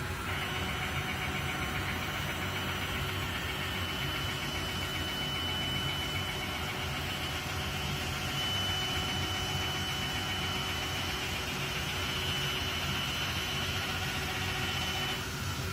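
Roland DWX-52DC dental milling machine running: a steady high motor whine sets in just after the start and cuts off near the end, over a constant low hum.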